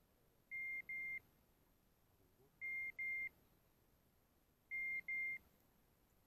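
Electronic beeper collar on a pointing dog giving its point-mode signal: pairs of short, high beeps about every two seconds, three pairs in all. This signal means the dog has stopped and is holding point on game.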